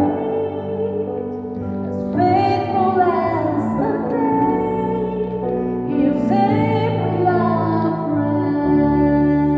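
Female soloist singing a slow gospel song into a microphone over sustained keyboard accompaniment, with new sung phrases starting about two seconds in and again about six seconds in.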